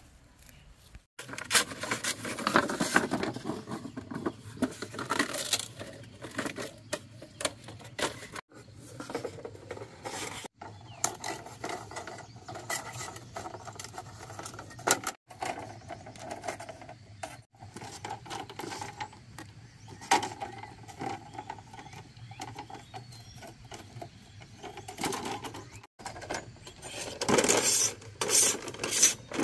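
Machete blade scraping and shaving along green bamboo strips, a quick run of rasping strokes and small clicks, as the bamboo is prepared for weaving a basket. Near the end the strokes grow louder as the blade works a bamboo pole.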